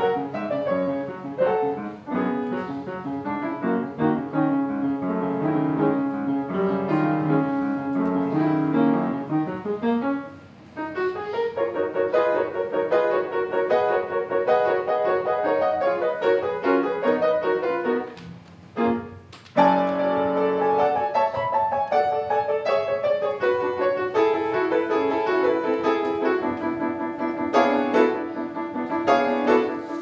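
Piano music: a pianist playing a piece recorded at a concert, with two short lulls between phrases.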